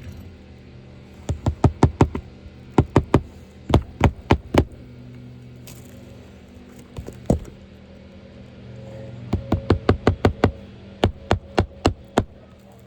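Hammer driving roofing nails into a new asphalt shingle: several bursts of quick, sharp strikes, a few per nail, with a short pause between bursts.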